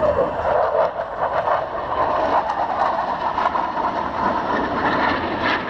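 Jet aircraft passing overhead: steady rushing engine noise that rises a little in pitch over the first couple of seconds.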